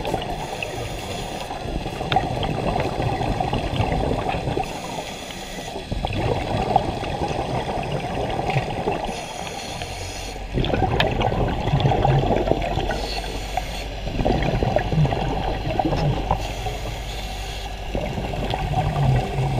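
Scuba regulator exhalation bubbles gurgling, heard underwater through the camera housing. They come in bursts every few seconds with each breath.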